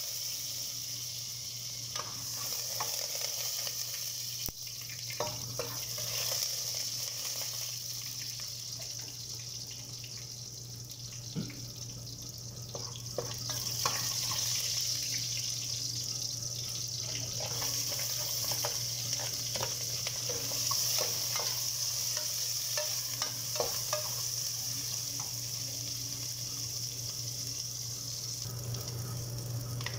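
Garlic cloves and then sliced onions sizzling in hot oil in a metal pot, a steady hiss, with a metal spoon scraping and clicking against the pot as they are stirred. A steady low hum runs underneath.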